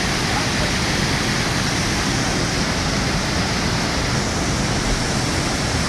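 Floodwater of a swollen river rushing past, a steady loud roar of torrential water.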